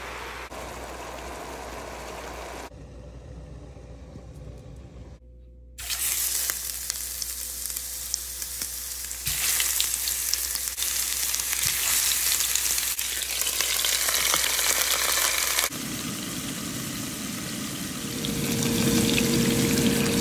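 Swordfish steaks sizzling as they pan-fry in oil. The sizzle is quieter for the first few seconds, loud from about six seconds in, and jumps up in level in abrupt steps.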